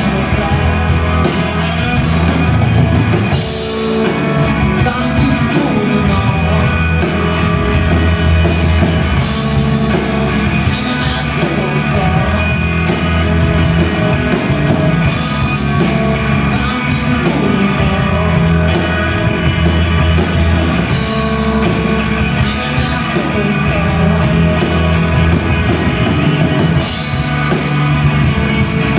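A live rock trio playing loud: electric guitar, bass guitar and drum kit with steady cymbal hits, with male lead vocals at times.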